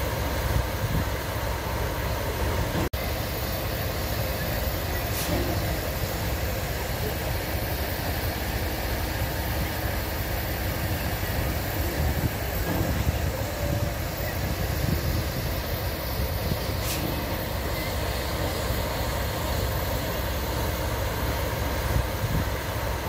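Narrow-gauge steam locomotive standing with steam hissing steadily from around its cylinders, over the low rumble of an idling diesel locomotive coupled behind it. The sound drops out for an instant about three seconds in.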